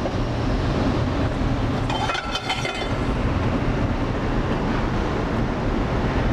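Steady rumble of a commercial kitchen's ventilation, with a short burst of metallic clinking at the gas range about two seconds in.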